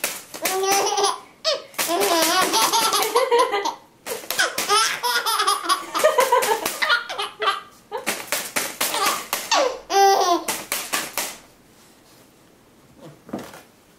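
Baby laughing hard, with giggles and belly laughs in three long bouts. The laughter falls quiet about eleven seconds in.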